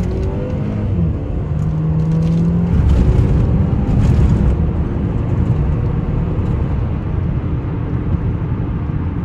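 Audi 2.0 TFSI turbocharged four-cylinder engine accelerating through the gears, heard from inside the cabin. The engine note rises and drops at a gear change, holds steady briefly, then gives way to a loud low rumble with road noise. It is running on gasoline mixed with used engine oil and is still pulling with power.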